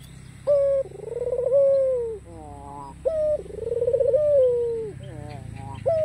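Barbary dove (white ringneck dove) cooing: three long rolling coos about two and a half seconds apart, each opening with a short sharp note and then a vibrating, slowly falling tone.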